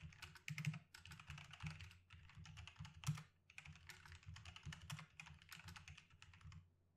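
Rapid typing on a computer keyboard, in quick bursts of keystrokes with short pauses between, and one harder keystroke about three seconds in.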